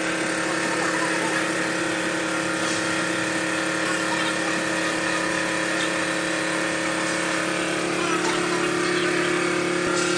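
Belt filter press dewatering soybean curd residue, running with a steady mechanical hum and an even drone.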